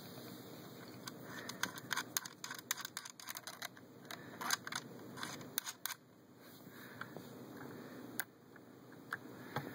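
Sharp clicks and light knocks from a hand handling an airsoft M60 replica and the camera moving over it. They come in a quick cluster for the first half, then as a few single clicks.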